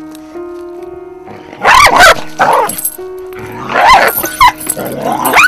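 A dog snarling and yelping in two loud bouts as it spins and bites at its own tail. This is compulsive, self-harming tail-biting.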